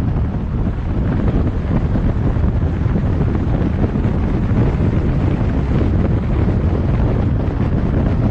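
Wind noise on the microphone over the steady low road and engine noise of a car driving, even and unbroken throughout.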